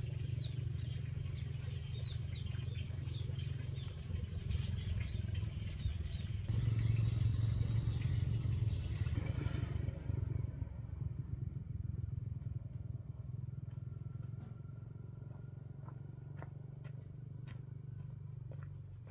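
Small motorbike engine running steadily, growing louder from about six seconds in as it pulls away, then easing off.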